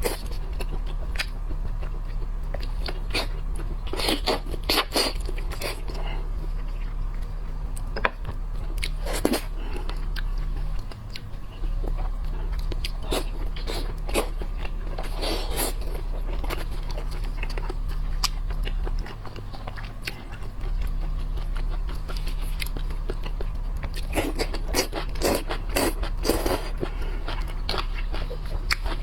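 Close-miked eating of seafood: biting and chewing, with scattered crisp crunches and clicks that come in clusters, over a steady low hum.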